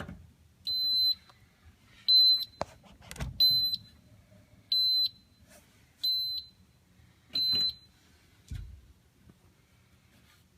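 An electronic beeper sounding six short, high-pitched beeps at an even pace of about one every second and a quarter, with a few sharp clicks and a low thump in between.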